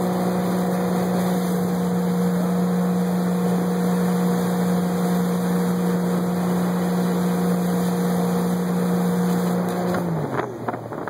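Ski boat engine running at a steady towing speed over a constant rush of water spray and wind. Near the end the engine note drops away as the boat comes off the throttle.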